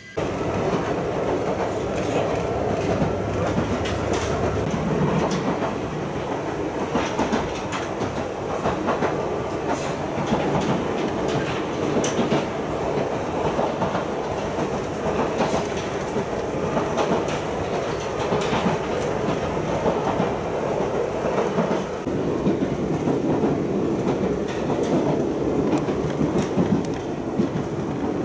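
Ichibata Electric Railway train running at speed, heard from inside the carriage: a steady rumble of wheels on rails with clickety-clack over the rail joints.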